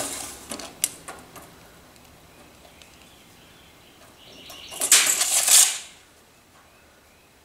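A few light clicks, then a steel tape measure's blade retracting into its case with a brief rattling zip about five seconds in.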